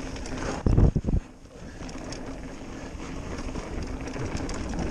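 Mountain bike rolling fast down a dirt trail: steady tyre rumble and rattle with wind on the microphone, and a brief burst of heavy low thumps about a second in.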